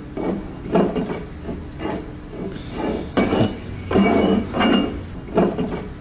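Glass bottle spinning on its side on a wooden table, knocking and clinking against the wood about twice a second, a few of the knocks with a brief glassy ring.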